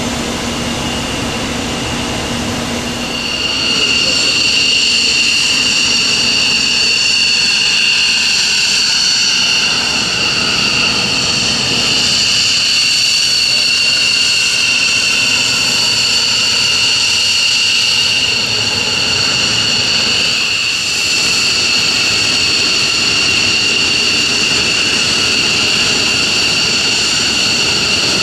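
F-15E Strike Eagle's twin jet engines running at taxi power: a steady, high-pitched whine over a rushing roar, which grows louder about three seconds in.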